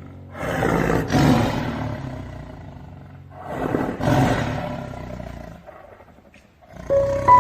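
A large animal roaring twice, each call about two seconds long and fading away, the second about three seconds after the first. Music starts near the end.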